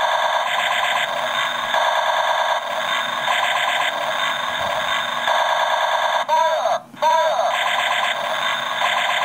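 Electronic laser-gun sound effects from the sound chip of a knockoff Gobots Convertible Laser Gun toy. A continuous looping warble of rapid electronic pulses plays, with falling zaps a little past six and seven seconds in and a brief cut-out between them.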